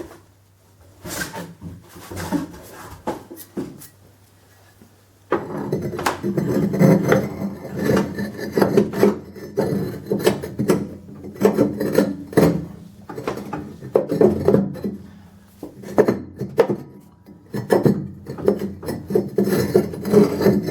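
Fireclay firebricks scraping and knocking against the stove's firebox as they are worked into place by hand. A few light scrapes at first, then from about five seconds in a steady run of repeated scraping strokes.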